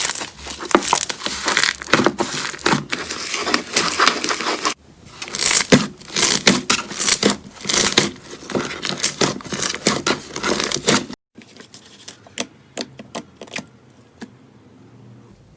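Slime being squished and pressed, a dense run of sticky crackling and popping with a short break about a third of the way through. About two thirds of the way through it cuts to a much quieter stretch of scattered single clicks.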